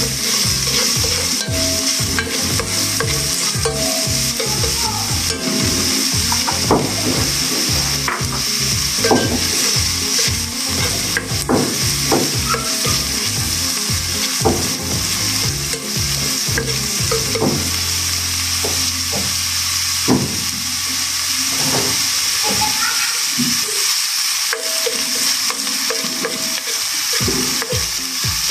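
Diced onion and garlic sizzling steadily in hot oil in a granite-coated pot, with a spatula scraping and tapping the pan bottom in irregular strokes as it stirs.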